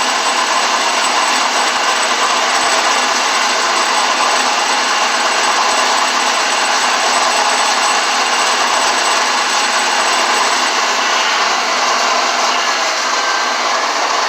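Shopsmith Mark V running as a drill press, loud and steady, drilling a hole through a plastic disc.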